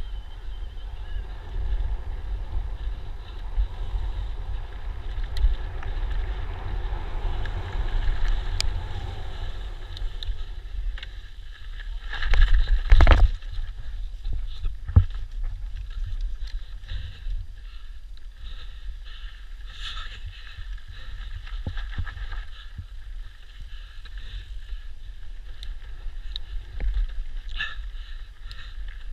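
Electric mountain bike riding fast down a dirt trail, heard from a camera on the rider: wind buffeting the microphone, tyres on dirt and the bike's parts rattling over bumps. About twelve seconds in there is a loud burst of scraping and knocking lasting about a second, the loudest sound, followed by a single sharp knock a couple of seconds later.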